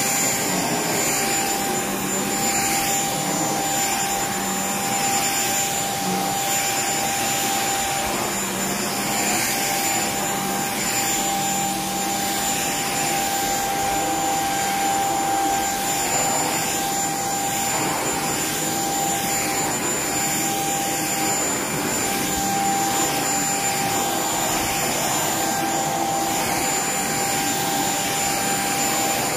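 Shark cordless stick vacuum running steadily as its motorised floor head is pushed back and forth over a low-pile rug: an even suction noise with a constant high whine.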